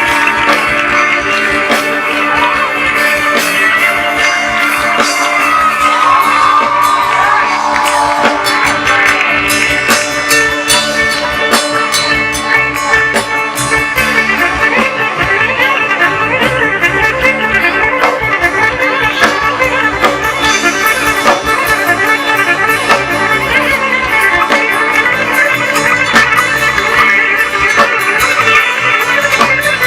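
Live band playing an instrumental passage on amplified plucked strings, with gliding bends in the lead line over a steady beat.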